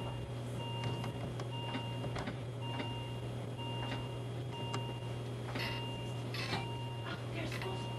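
Electronic alarm from medical equipment beeping about once a second, each beep about half a second long, over a steady low hum, with a few faint knocks and rustles.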